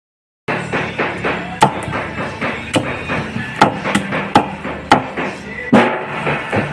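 Chayote being chopped with a blade: sharp, irregular chops about every half second to second, starting about half a second in.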